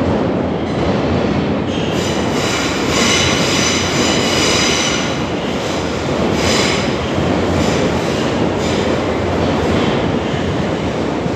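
Train running on rails: a steady rolling rumble, with a high squeal of the wheels that sets in about two seconds in and comes and goes.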